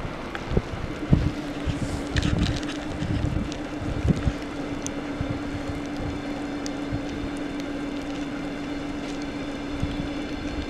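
Long-distance passenger coaches rolling past on the rails, a steady running noise with a steady hum. Wind buffets the microphone with irregular thumps in the first few seconds.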